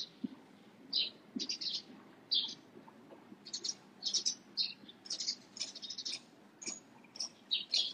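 Small birds chirping: short, high chirps in quick runs, coming more thickly in the second half.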